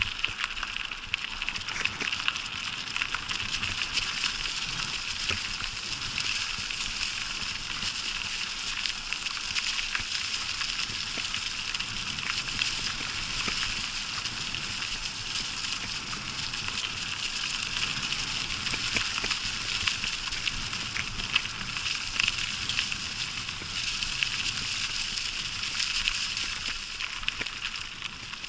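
Bicycle tyres rolling through a thick carpet of dry fallen leaves: a continuous rustling crackle full of fine clicks, easing a little near the end as the wheels reach a brick path.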